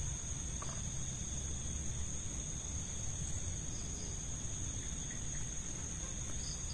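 Night insects such as crickets trilling in one continuous high, steady tone, over a low rumble.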